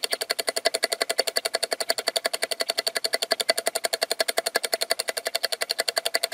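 Rapid, even ticking of about twelve sharp clicks a second at a steady level, running unbroken across the picture's cuts: a ticking sound effect in the soundtrack.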